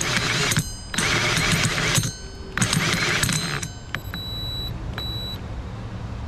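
Power drill motor triggered in several short bursts of about a second each, spinning up and stopping, with the sound ending about four seconds in.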